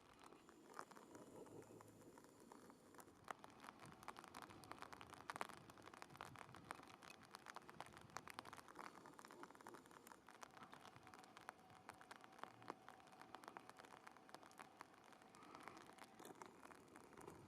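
Near silence, with faint irregular clicks and crackles throughout.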